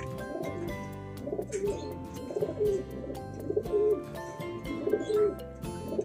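Racing pigeon cooing several times, low repeated coos over steady background music.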